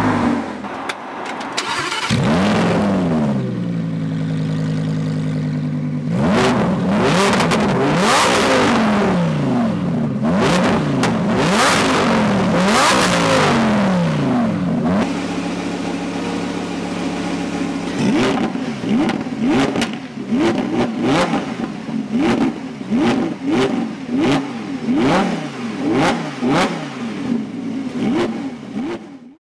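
Lamborghini Huracán RWD's V10 through a Novitec aftermarket exhaust. First the tail of a drive-by fades with falling pitch. Then the engine idles and is revved in repeated quick blips, ending with a run of short sharp revs about one a second.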